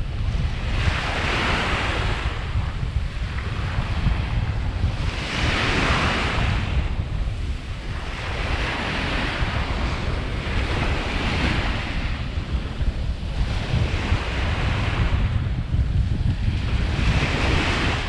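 Small waves breaking and washing up a sandy beach, a hiss that swells and fades every three to four seconds. Steady wind rumbles on the microphone underneath.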